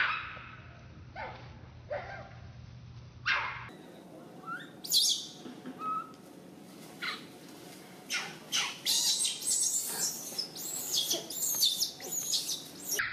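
High-pitched animal chirps and squeaks: a few scattered short calls, then from about eight seconds in a dense run of quick chirps, some gliding up and down in pitch.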